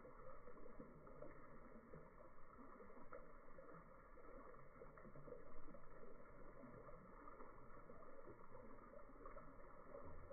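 Near silence: faint, steady outdoor background noise with no distinct sound events.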